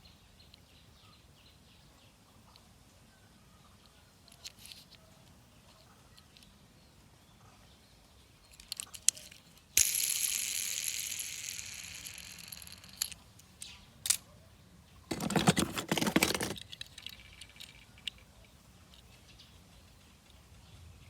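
Small clicks and rattles, then a sudden hiss about halfway through that fades away over about three seconds, and a short, loud rustling burst a few seconds later.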